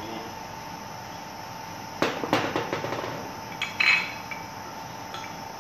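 Steel bolts and nuts clinking and knocking against the steel flanges of a rubber expansion joint as they are fitted by hand, in a burst about two seconds in and a second one just before four seconds, the last with a brief metallic ring.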